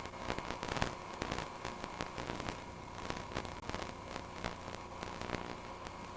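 Irregular crackling clicks over a steady electrical hum: recording noise with no other clear sound.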